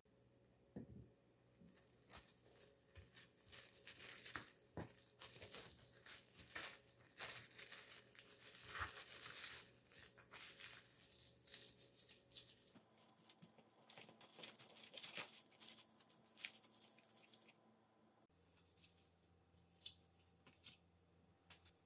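Plastic cling wrap crinkling and crackling in quick bursts as hands wrap it tightly around rolls of raw pork. It thins out to a few faint crackles near the end.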